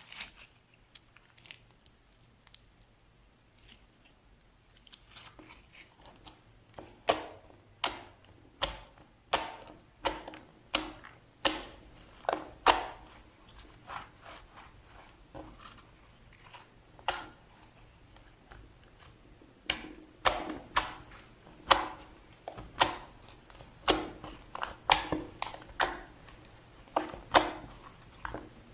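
Slime being worked by hand, giving sharp pops and clicks: faint and sparse at first, then loud and regular at about one to two a second from about a quarter of the way in.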